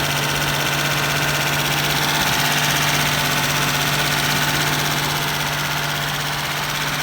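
The freshly rebuilt 3.0-litre V6 of a 1993 Mitsubishi 3000GT SL idling steadily and loud, which the owner puts down to an exhaust leak.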